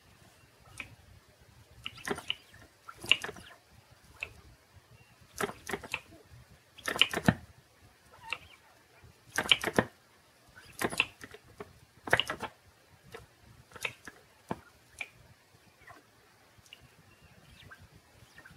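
Small flame licker (vacuum) engine turned over by hand at its flywheel: a string of short clicks and pops, roughly one every second or so at uneven spacing, growing weaker toward the end as it turns over a few strokes but fails to keep running.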